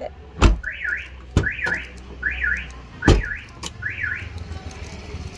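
Car alarm sounding as the car is being locked: a repeated electronic chirp that sweeps up and down, about once a second. Three loud thumps come through it, about half a second in, near a second and a half, and around three seconds.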